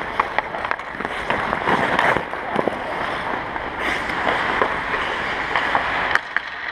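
Ice hockey players skating: blades scraping and carving on the ice, with many sharp irregular clacks of sticks on pucks, in a large ice arena.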